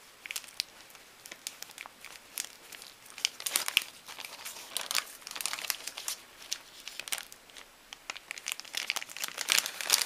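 Plastic bag crinkling in irregular bursts of crackles as it is tipped and shaken to pour a crumbly powder out of it.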